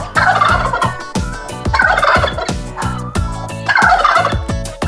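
Turkey gobbling three times, each a rattling call of about a second, over a backing music track with a steady beat.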